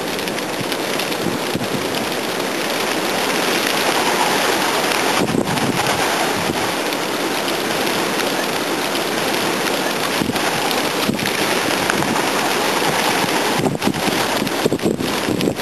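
Loud, dense rush of many wings as a large flock of racing pigeons is released and takes off, swelling a few seconds in.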